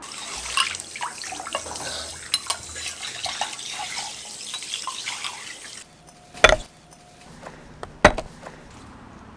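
Running water with small clinks, cutting off suddenly about six seconds in, followed by two sharp knocks.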